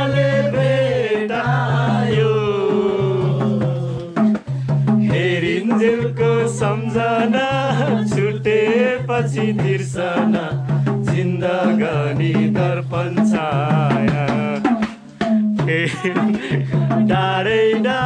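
Background music: a gliding melody line over a steady hand-drum beat and a repeating low note pattern, briefly dropping out about 15 seconds in.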